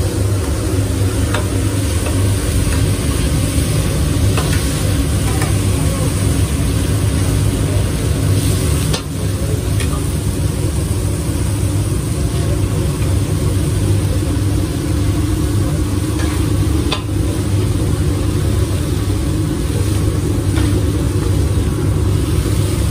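Eggs, mushrooms and meat patties sizzling on a steel flat-top griddle, with the occasional sharp click of a metal spatula scraping and tapping the griddle. A steady low hum runs underneath.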